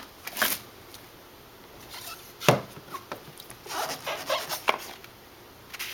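Handling of a trading-card box and its packaging: a few sharp knocks and clicks, the loudest about two and a half seconds in, then a stretch of scraping and rustling.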